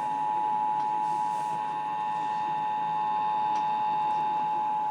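Emergency Alert System attention signal: a steady two-tone beep of 853 and 960 Hz played together, held without a break, heard over an AM radio broadcast with faint hiss beneath. It is the alert tone that comes just before the spoken Required Monthly Test message.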